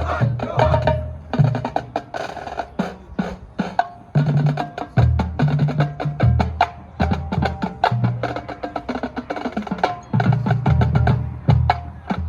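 High school marching band's percussion section playing on its own: dense drum strikes over low bass-drum notes that change pitch, with short wood-block and mallet notes.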